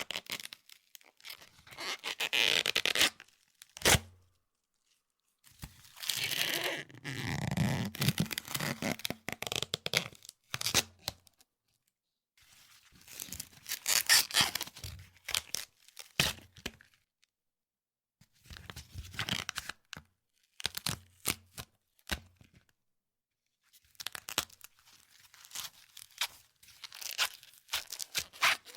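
Husk being peeled off an ear of corn on the cob: a run of tearing, crackling rips, each lasting a second or two, with short pauses between pulls.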